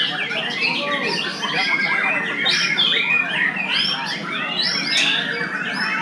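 Several caged white-rumped shamas singing at once, a dense tangle of overlapping whistled phrases and quick rising and falling notes.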